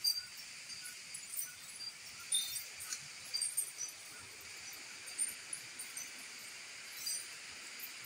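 Forest ambience: a steady high-pitched insect drone, with scattered short high chirps and ticks and a few brief rustles.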